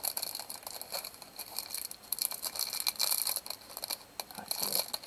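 Clear plastic packaging crinkling in short, irregular crackles as hands try to pull and tear it open.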